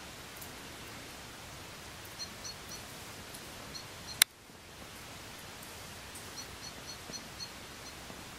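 Steady outdoor background hiss with a small bird singing short runs of high two-note chirps, four or five at a time, repeated every few seconds. About halfway through comes a single sharp click, the loudest sound, after which the hiss briefly dips.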